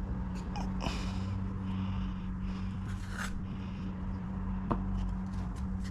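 Steady low hum with a few faint scrapes and taps from floor boards being handled.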